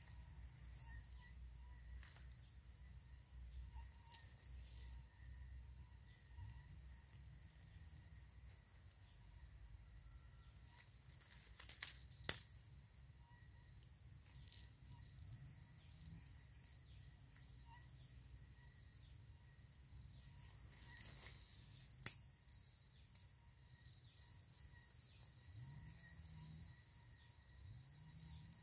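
Insects in the forest keep up a steady, high-pitched drone without a break. There is light rustling in the undergrowth, and two sharp clicks stand out, one about twelve seconds in and one about twenty-two seconds in.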